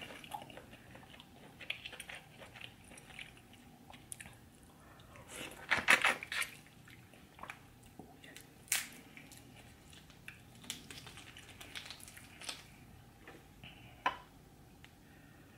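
Close-miked eating of buttery seafood: wet chewing and squishing mouth sounds with scattered sharp clicks, loudest in a burst about six seconds in.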